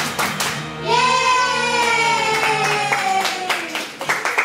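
Female idol group singing one long held note that slowly falls in pitch over a backing track, with the audience clapping along in time, about two claps a second. The backing track stops about three seconds in and the clapping carries on.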